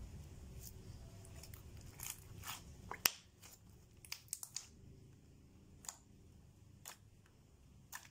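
Glossy slime being squeezed, folded and poked by hand, giving scattered small wet clicks and pops, with a quick cluster of them midway.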